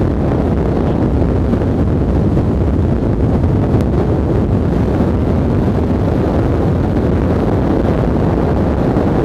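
Steady rush of wind and road noise from a vehicle driving at speed, with wind buffeting the microphone.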